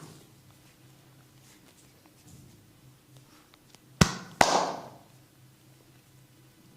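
Two sharp hand slaps during an oil head and neck massage, about half a second apart, the second trailing off briefly; faint rubbing on skin and hair around them.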